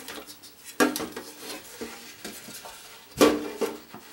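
Stamped metal inner well of a Crock-Pot slow cooker knocking and scraping against the base housing as it is handled. There are a few clanks that ring briefly, the loudest about three seconds in.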